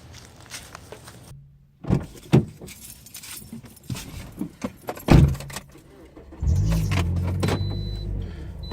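Clattering and several sharp thumps, like keys and a car door, then a car engine starts about six and a half seconds in and runs steadily. A high electronic warning chime beeps twice near the end.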